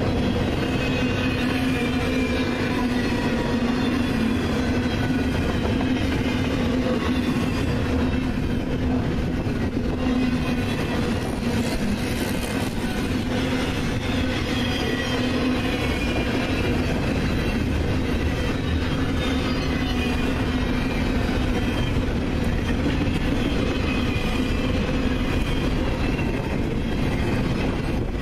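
Canadian Pacific double-stack intermodal freight train passing at speed: a steady, even rumble of steel wheels on rail with a low hum, and faint wavering high squeals from the wheels.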